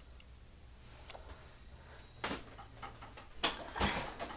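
Handling noise from a handheld camera being moved: faint room hum with a few scattered clicks, then a couple of louder knocks near the end.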